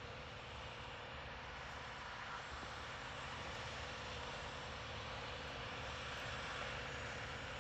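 John Deere 8850 four-wheel-drive tractor's V8 diesel engine running steadily, growing gradually louder.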